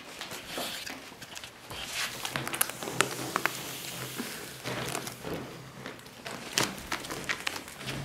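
Ferrets scrambling in and around a crinkly ribbed plastic tube on carpet: irregular rustling and crackling of the plastic with scattered sharp clicks and scrabbling.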